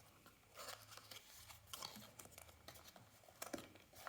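Faint handling noise of a cardboard box being opened by hand: a few soft, scattered scrapes and rustles.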